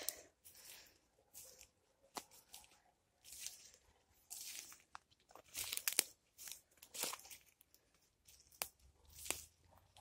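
Faint footsteps through forest undergrowth: uneven crunching and rustling of leaves and low plants underfoot, roughly one step a second, with a few sharper clicks.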